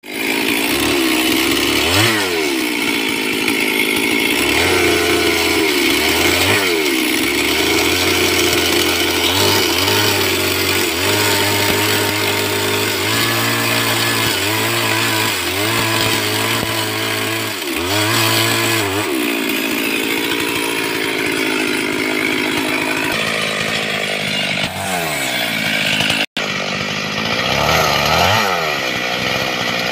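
Stihl MS 382 72 cc two-stroke chainsaw running at high revs while cutting a tree limb. Its engine pitch repeatedly dips and climbs back as the chain bites into the wood. The sound drops out for an instant about 26 seconds in.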